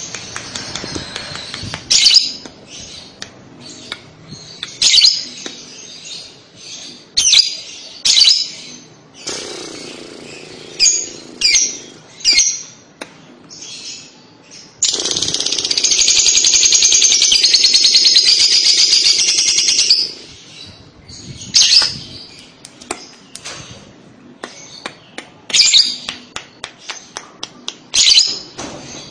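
Fischer's lovebird calling: sharp high chirps at intervals, and about fifteen seconds in one long rapid rattling trill of about five seconds, the lovebird's 'kekek' song, before the chirps resume.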